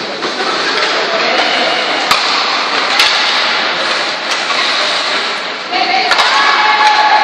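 Spectators and players shouting at an ice hockey game in an ice rink, with two sharp knocks of stick and puck about two and three seconds in. Near the end the shouting swells into long held calls.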